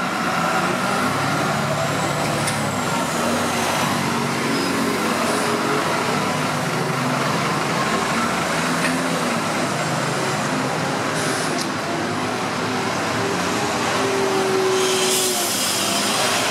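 Articulated city buses, Irisbus Citélis 18 and Créalis Néo 18, running past with a steady engine drone. About fifteen seconds in, a loud burst of air hiss.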